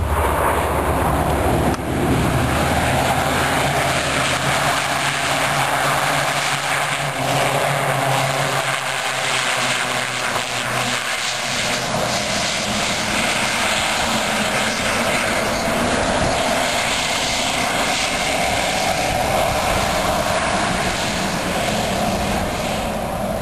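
Aircraft engines and propellers running steadily and loudly. In the first few seconds it is the Aviatika ultralight biplane's piston engine as it taxis. The low engine note then fades into a steady rushing, whining engine noise while an L-410 twin turboprop rolls along the runway.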